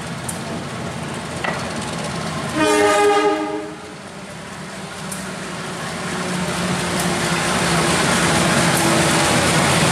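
CC 203 diesel-electric locomotive sounding its horn once, a chord of several tones about a second long, a few seconds in. Its diesel engine then comes in, growing steadily louder as the train approaches the platform.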